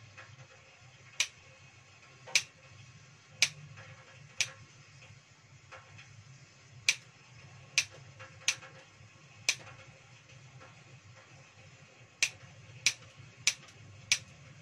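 Kitchen scissors snipping the claws off boiled chicken feet: about a dozen sharp, crisp snips at an uneven pace of roughly one a second, with a couple of short pauses.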